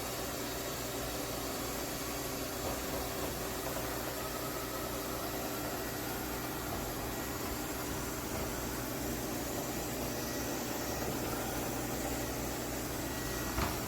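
Lefant M210 Pro robot vacuum running steadily, its suction fan and brushes giving an even whirring hiss. There is a single short knock near the end.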